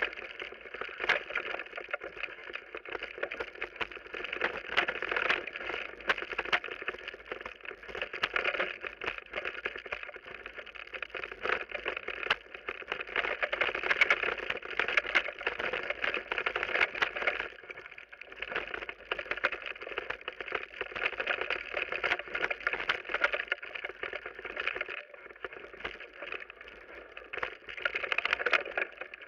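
Mountain bike rolling downhill on a rough dirt forest track: continuous tyre noise with many rattles and knocks from the bike and camera mount as they jolt over the bumps.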